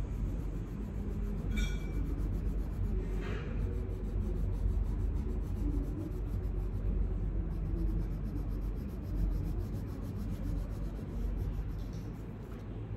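Colored pencil rubbing and scratching on paper in quick back-and-forth shading strokes, over a low steady rumble.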